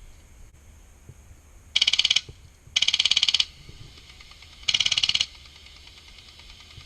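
G&G airsoft LMG on a Wolverine Inferno HPA engine firing three short bursts of rapid, evenly spaced shots, each burst about half a second long.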